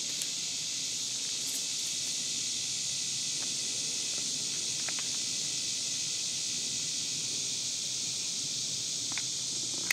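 Steady high-pitched chorus of insects in the evening woods, unbroken throughout, with a few faint clicks over it.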